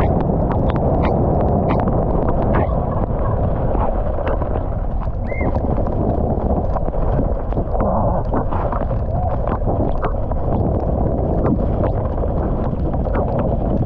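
Downhill mountain bike ridden fast down a wet, muddy track: a constant rush of wind and tyre noise, with frequent sharp rattles and knocks from the bike over rough ground.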